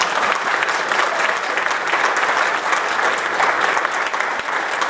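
Congregation applauding: many hands clapping steadily.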